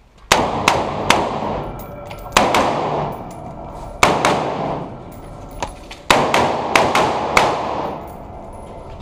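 AR-15-style carbine firing a string of about eight shots, some in quick pairs and some single, with pauses of up to two seconds between groups. Each shot rings on in the enclosed, roofed shoot house.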